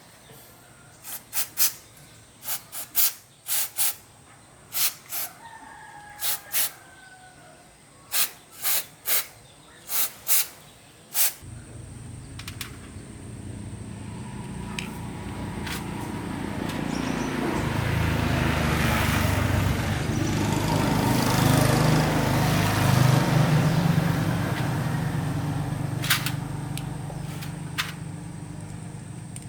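A run of about fifteen sharp knocks, irregularly spaced, over the first eleven seconds. Then a vehicle engine comes in low, grows steadily louder for about ten seconds, peaks and fades again, as of a vehicle passing by.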